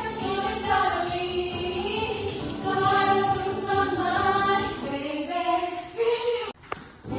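A show choir singing held notes in several-part harmony. The singing cuts off abruptly about six and a half seconds in and comes back just before the end.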